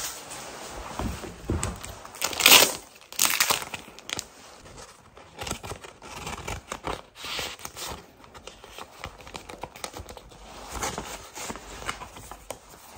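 Paper being handled: crinkling and rustling, with two louder tearing sounds about two and a half and three and a half seconds in, then smaller crackles.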